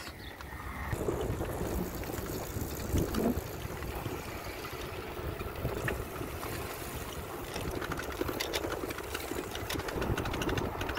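Wind rushing over the microphone of a moving bicycle, over a steady low rumble. In the second half a fast, light rattle from the bike comes in.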